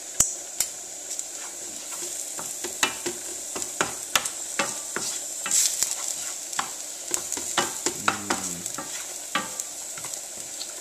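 Carrot sticks sizzling in a hot non-stick frying pan while a wooden spoon stirs them, knocking and scraping against the pan in irregular clicks over a steady sizzle. The carrots are browning.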